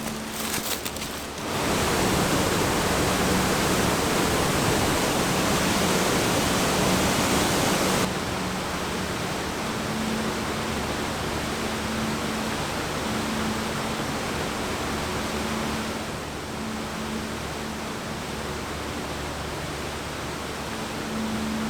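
Steady rush of falling water from a waterfall. Its level changes sharply about a second and a half in, again about eight seconds in, and again about sixteen seconds in.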